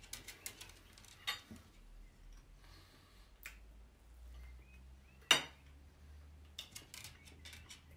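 Metal knife and fork clicking and scraping against a plate while food is cut, with one sharp, loud ringing clink a little past halfway and a run of quick light clicks near the end.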